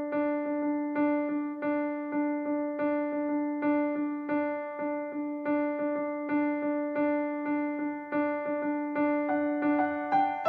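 Background music on an electric-piano-style keyboard, striking the same notes over and over in a steady rhythm, with higher notes coming in near the end.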